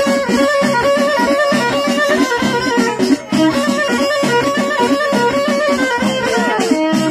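Traditional folk music: an ornamented melody line held over an evenly repeating rhythmic accompaniment, dropping out briefly about three seconds in.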